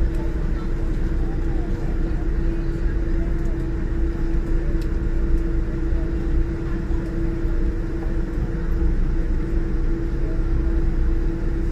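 Steady low rumble with a constant hum inside the cabin of a Boeing 787-9 on the ground after landing, with faint passenger murmur underneath.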